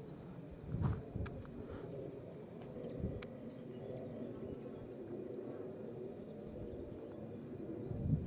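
Insects chirping steadily in a high, even trill, with a soft low thump about a second in and another near the end, and a couple of sharp clicks.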